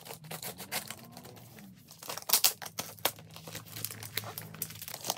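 Plastic courier mailer bag being cut open and peeled off a cardboard box: crinkling and tearing plastic, with sharp crackles, loudest about two and a half seconds in.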